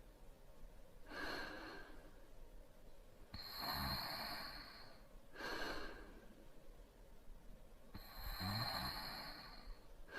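A man lightly snoring in his sleep: two slow breaths in with a soft fluttering snore, each followed by a shorter breath out.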